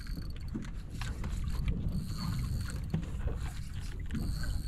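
Fishing reel drag whining as line is pulled off in short spells, three times, over the steady low rumble of the boat's engine and water.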